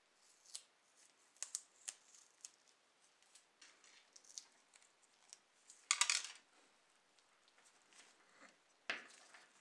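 Small plastic model-car parts handled in gloved fingers: scattered light clicks and scrapes as a brake caliper and wheel are fitted, with a louder short scrape about six seconds in and a sharp click near the end.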